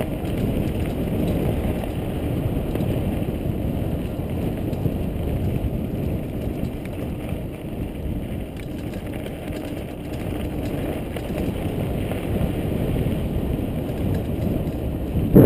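Steady low rumble of wind buffeting an action camera's microphone and tyres rolling over a rough dirt track while riding, with a sharp knock right at the end.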